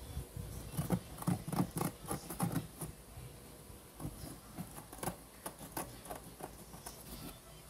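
Fingers tapping and scratching on a corrugated-cardboard cat house: irregular light taps and scrapes in two short spells, a second or two apart.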